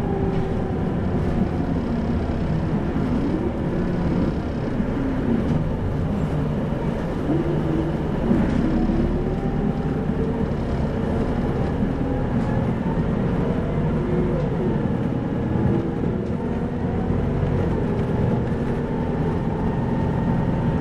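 The Isuzu Erga 2PG-LV290N3 city bus's diesel engine and drivetrain running, heard from inside the bus. The engine note rises and falls several times as the bus speeds up and slows, over a steady road rumble.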